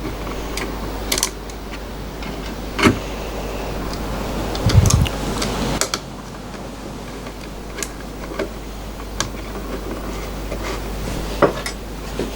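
Scattered metallic clinks and knocks of hand tools and metal parts being handled, irregular, with a heavier cluster of knocks about halfway through.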